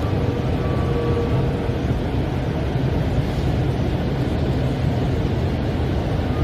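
Metro train carriage running noise heard from inside while the train moves along its track: a steady low rumble with a faint whine that comes and goes.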